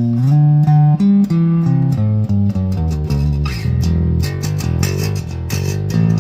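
Electric bass guitar played through an amp with the pickup selector in its middle position: a line of plucked single notes, moving to deeper, longer-held notes about halfway through.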